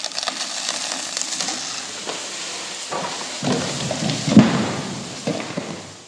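Dry coconut palm falling: a long crackling, swishing rush as the trunk and fronds come down, then a heavy crash about four seconds in as it hits the ground.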